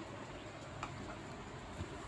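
Faint steady background hiss of room tone between narration lines, with two faint clicks, one a little under a second in and one near the end.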